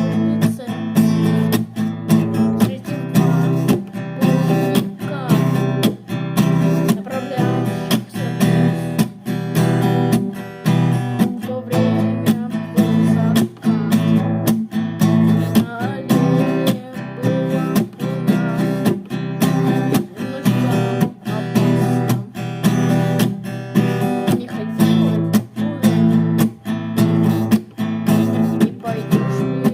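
Acoustic guitar strummed in a steady, even rhythm, an instrumental stretch of a song.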